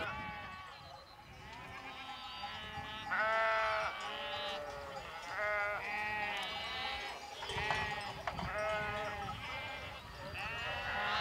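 A flock of sheep bleating, many calls overlapping and following one another about once a second.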